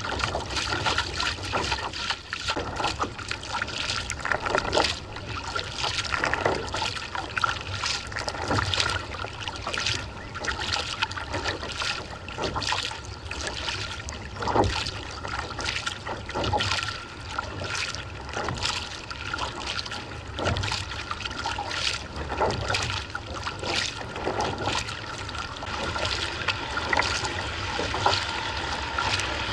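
Kayak paddle strokes: the blades splash into the water about once a second, and water trickles and runs along the hull between strokes.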